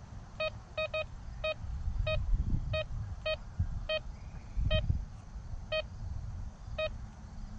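GreenRex metal detector giving short, mid-pitched target beeps about a dozen times at irregular intervals as its coil is swung over the test coins. Low rumbling noise runs underneath.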